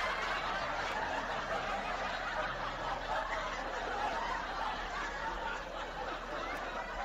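Muffled laughter over a steady hiss of background noise.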